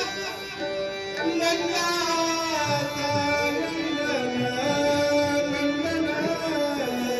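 Konkani devotional bhajan music: a long melodic line of held and sliding notes over hand-drum strokes.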